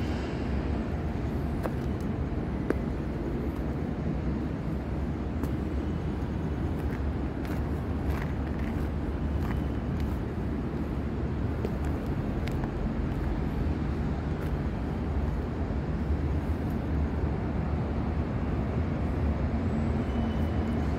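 Steady low rumble of ambient background noise, with a few faint scattered clicks.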